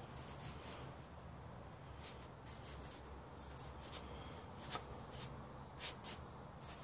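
Faint handling noise: light rubbing and a few small clicks as the handsaw is held and turned, the sharpest clicks a little before 5 seconds and near 6 seconds, over a low hum.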